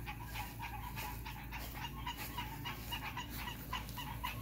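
Faint animal calls: short, quick calls repeating several times a second without a break.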